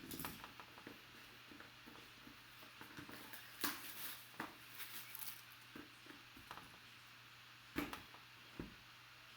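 Faint handling noises of a trading card box being opened and its cards handled: scattered light clicks, taps and rustles, with a few sharper taps.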